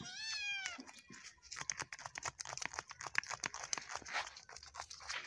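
A kitten meows a few times in the first second. Then come irregular wet slaps and taps of live fish flopping on concrete.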